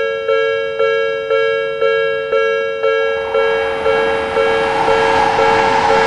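Japanese level-crossing warning bell ringing at about two strikes a second. From about halfway through, a train's running noise grows in under it as the train arrives.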